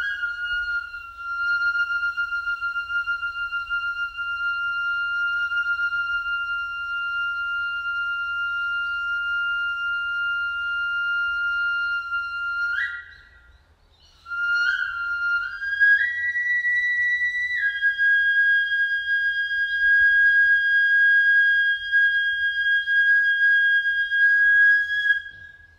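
Jomon flute blown in two long breaths. The first is a high, steady note held for about twelve seconds that flicks up in pitch as it ends. After a short pause comes a second long note that steps up for a moment, then settles slightly higher than the first.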